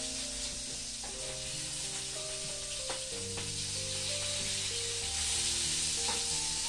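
Food sizzling steadily in a frying pan on a gas stove as it is stirred, with a couple of light clicks from the utensil in the pan near the middle. Soft background music with held notes plays underneath.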